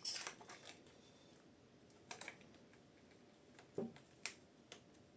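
A few faint, scattered clicks and taps from small 3D-printed plastic parts being handled as a cable-connector cover is fitted, a couple of clicks about two seconds in and two more near four seconds.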